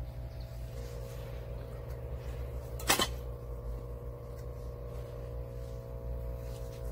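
A single sharp knock about three seconds in, a kitchen knife being set down on a wooden cutting board, over a steady low hum.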